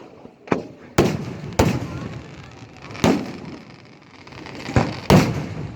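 Fireworks going off: six sharp bangs at uneven intervals, each trailing off in a short echoing rumble, the loudest near the end.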